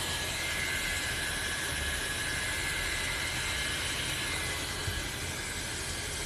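Jisulife neck fan running: a steady rush of air with a thin high motor whine.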